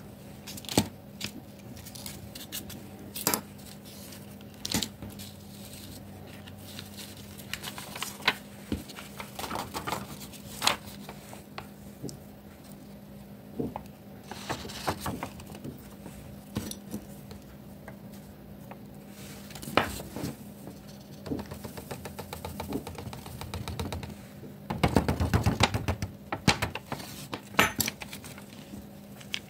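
Scattered small clicks and taps of a plastic nail-glitter jar and a metal nail tool being handled. About 25 seconds in comes a longer stretch of paper rustling and scraping as the sheet of spilled glitter is lifted and tipped back into the jar. A steady low hum runs underneath.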